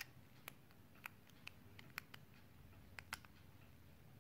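Faint, irregular clicks and ticks of plastic and metal Beyblade parts, a metal wheel and clear plastic energy ring, being handled and fitted together by hand. There are about eight small ticks, some in quick pairs, over a quiet room hum.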